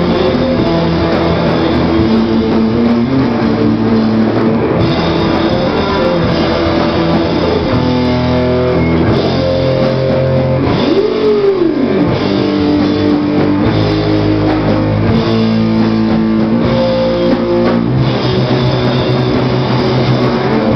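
Live punk rock band playing loud: electric guitars and a drum kit, with no singing. About ten seconds in, a note glides up and back down.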